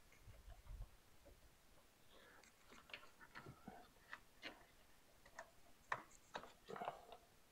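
Faint, irregular clicks and light rustling of plastic wiring connectors being handled as a dead socket is worked off a motorcycle accessory wiring harness.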